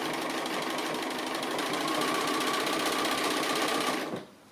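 Sewing machine running in free-motion straight stitching with the feed dogs dropped, the needle going up and down at a fast even rate under a steady motor whine. The whine gets a little louder about two seconds in, and the machine stops about four seconds in.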